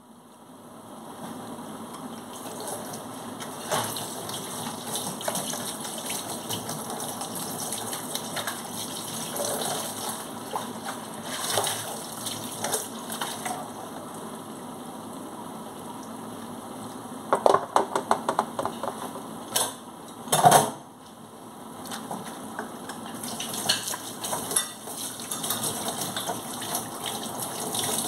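Kitchen tap running into a stainless steel sink during hand dish-washing, with scattered clinks and knocks of pans and dishes against the sink. There is a quick run of clattering about two-thirds of the way through, followed by a louder knock.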